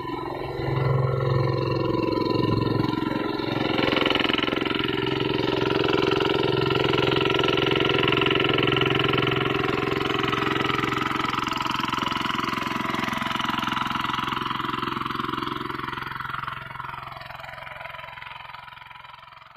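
Two-wheel hand tractor's single-cylinder diesel engine running steadily under load while working the soil. The sound fades away over the last few seconds.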